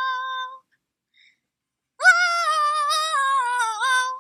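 High-pitched female singing, with little or no accompaniment: a held note that ends about half a second in, a pause of about a second and a half, then another sung phrase whose pitch dips and rises.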